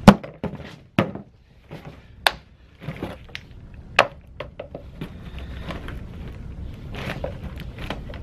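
Hand-tool work on a snowmobile's recoil pull-starter housing on a cardboard box: a few sharp knocks and clicks in the first four seconds, the first the loudest, then softer scraping and small clicks as a screwdriver works the centre screw.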